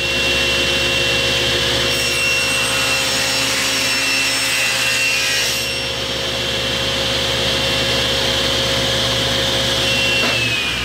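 SawStop table saw running, its blade cutting through a half-inch ABS plastic blank fed along the fence, with a brighter cutting sound from about two to six seconds in. Near the end the saw is switched off and its whine falls in pitch as the blade spins down.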